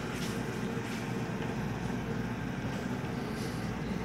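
Steady low background rumble of a large store's interior, with a couple of faint brief knocks.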